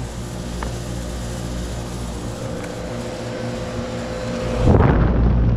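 Lennox Elite series heat pump running in cooling mode: a steady hum from the compressor and condenser fan, with a faint steady tone. Near the end a louder rush of air sets in and holds.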